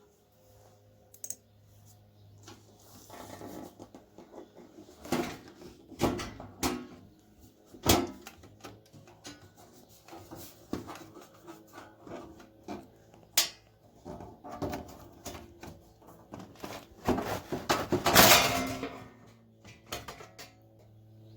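Metal knocks, clicks and clatter of screws and panels being handled as a Pioneer amplifier's case is taken off, with a louder scraping rush of sheet metal sliding about three-quarters of the way through. A faint low hum runs underneath.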